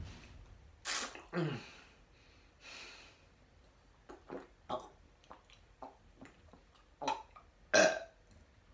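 A man's throat and breath noises after gulping down a bottle of liquid: short gasps and a falling, groan-like burp near the start, small mouth and swallowing clicks, then two loud gasps or coughs near the end.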